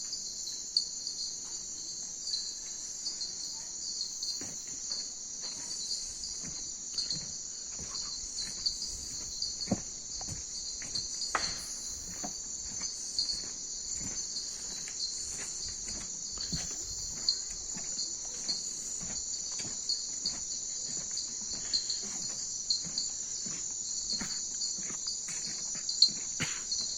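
Steady, high-pitched chorus of night insects trilling continuously, with scattered soft clicks and taps and one sharper click near the end.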